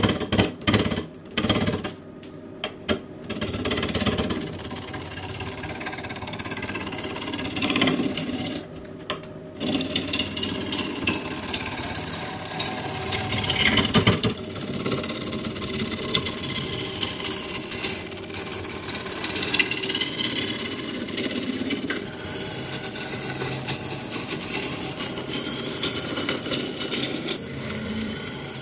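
Gouge cutting a log blank spinning on a wood lathe. In the first couple of seconds it strikes in quick, choppy knocks as the tool meets the uneven bark-covered surface. After two brief breaks it settles into a steady rushing, scraping cut.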